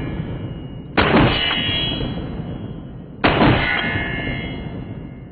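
Two 12-gauge shotgun shots from a Mossberg 930 SPX semi-automatic, about a second in and again a little after three seconds. Each is followed by steel targets clanging and ringing out slowly.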